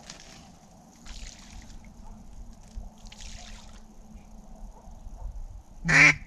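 Faint water sloshing and trickling in a few short spells, then one loud quack with a sharply rising pitch near the end.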